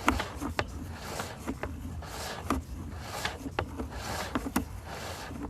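Sewer inspection camera head and push cable scraping and knocking inside the sewer pipe as it is pulled back through the line: irregular sharp clicks and rubbing over a steady low hum.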